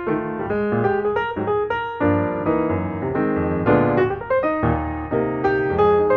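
Background piano music: a quick run of notes over low sustained chords.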